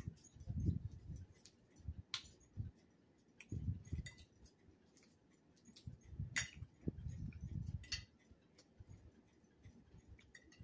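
Close-up eating sounds: chewing and mouth noises in irregular bouts, with a fork clinking against a china plate a few times as salad is picked up.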